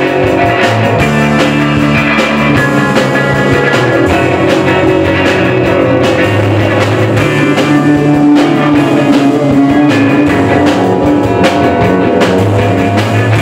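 Live punk rock band playing loud: distorted electric guitars over a drum kit with steady beats and cymbal crashes, without singing.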